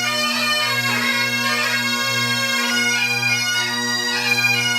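Great Highland bagpipes playing a tune: the chanter's melody moves from note to note over the steady, unbroken hum of the drones.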